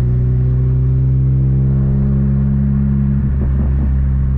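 1999 VW Gol 1.0 8V's four-cylinder engine through an HKS sport muffler, running at a steady engine speed with a deep, even drone, heard from inside the car.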